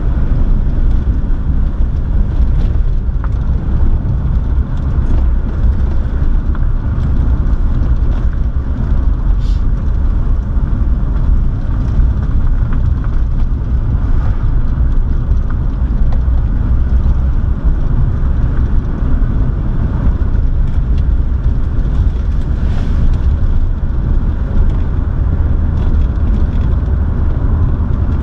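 Car driving steadily along a narrow country road, heard from inside the cabin: a continuous low rumble of engine and road noise with no marked revving or changes in pace.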